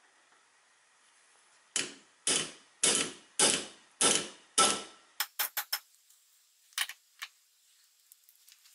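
Hammer blows on a brass punch against a small electric clock motor held in a steel bench vise: six hard strikes about half a second apart, each ringing briefly, then a few lighter quick taps. The motor is being knocked apart from its case.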